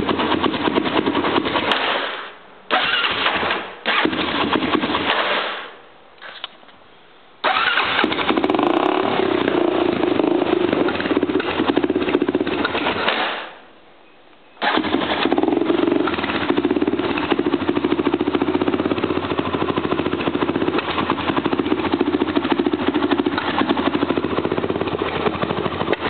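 Honda 400EX single-cylinder four-stroke ATV engine with a slip-on exhaust being started again and again and stalling. It catches, runs for a few seconds, sags and dies, then is restarted. The last two runs last about six and eleven seconds. It will not hold an idle, and the owner traces the problem to air pushing back from the carburetor into the airbox.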